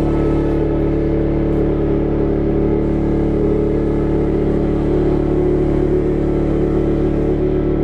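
Electronic drone from an audio-visual light show's soundtrack: a dense, low chord of many held tones, steady and unbroken.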